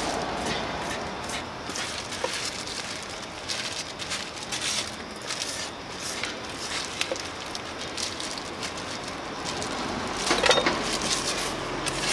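Irregular clicks, taps and knocks of food being cut and handled at a sundae stall, with a louder clatter about ten and a half seconds in.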